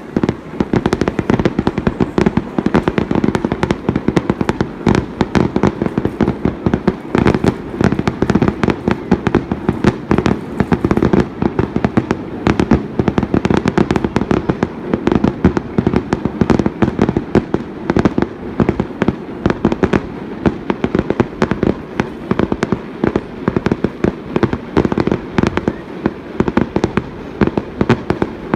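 Fireworks display in a dense barrage: sharp bangs and bursts follow each other several times a second without let-up, starting abruptly.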